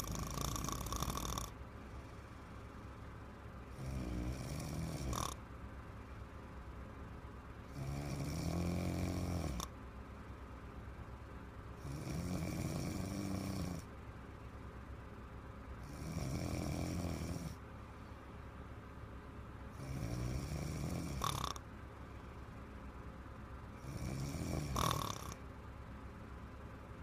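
A woman snoring in a steady rhythm: seven snores, one about every four seconds, each lasting a second and a half to two seconds, with quieter pauses between them.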